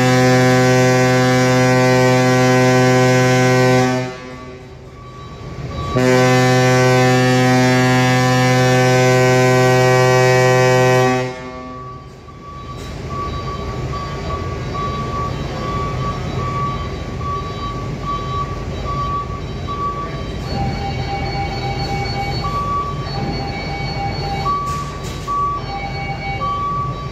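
A ship's horn sounds two long, deep blasts, about four and five seconds long with a short gap between them. Then a truck's diesel engine runs as the truck drives off the ferry's ramp, with a high beeper sounding on and off.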